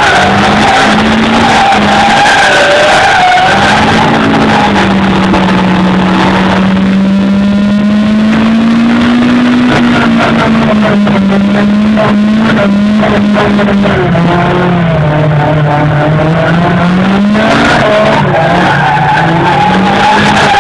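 Car engine held at high revs while the driven tyres spin and screech through donuts, its note wavering and sagging for a few seconds about two-thirds of the way through before climbing again.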